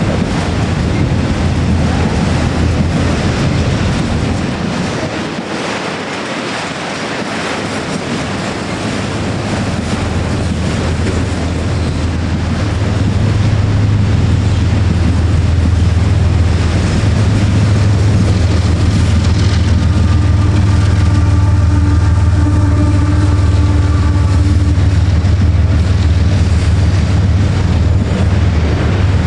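Autorack freight cars of a CSX freight train rolling past, steel wheels clacking over the rail joints over a steady rumble that grows louder from about twelve seconds in. A faint wheel squeal rings for several seconds past the middle.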